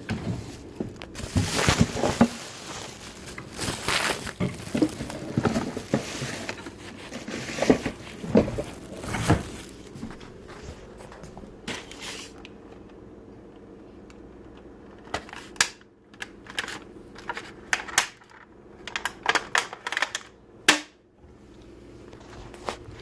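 Rustling and crumpling handling noises for the first ten seconds or so. After a quieter stretch come scattered sharp clicks and knocks.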